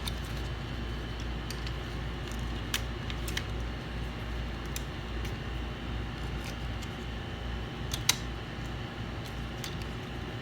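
Scattered light clicks and taps of small objects being handled, over a steady low hum; one sharper click about eight seconds in.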